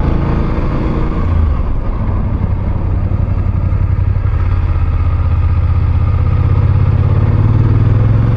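BMW F850GS parallel-twin engine running as the motorcycle is ridden. The low note dips about two seconds in, then climbs slowly through the second half as the bike pulls.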